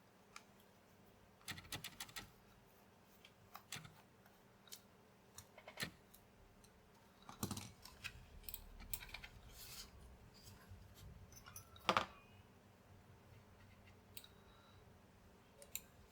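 Scattered light clicks and taps of a plastic computer mouse being handled and worked on while it is searched for the screw that holds its shell together, with a sharper click about 12 seconds in and a faint low rumble shortly before it.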